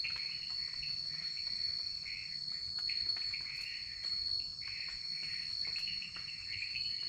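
Night forest insect chorus: a steady high-pitched drone with uneven, wavering calls from other insects just below it, and a few faint ticks.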